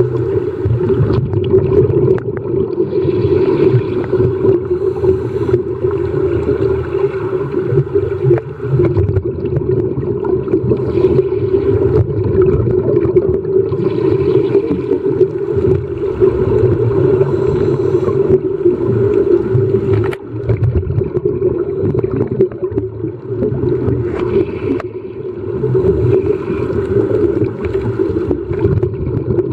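Muffled underwater sound recorded with the camera submerged: a steady low drone, with gurgling bursts every few seconds from scuba divers' exhaled regulator bubbles.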